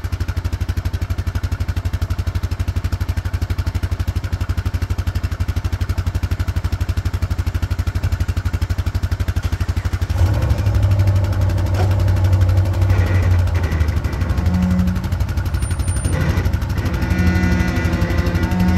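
An ATV engine idling with a steady, fast pulse. From about ten seconds in it runs louder, and its pitch rises briefly a few times.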